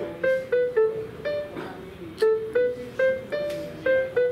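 Casio electronic keyboard played one note at a time: a simple melody of about ten short notes, each starting sharply and fading quickly, picked out by ear while finding the right notes.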